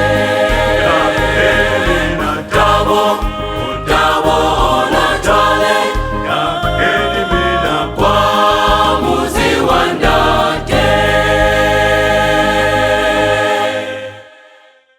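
A choir singing a gospel song over a steady bass accompaniment; about eleven seconds in the voices hold a long final chord, which fades out to silence near the end as the song finishes.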